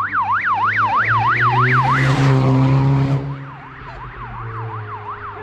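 Vehicle siren in a fast yelp, sweeping up and down about three to four times a second over a steady engine. A rush of noise comes about two seconds in, and the siren then carries on fainter.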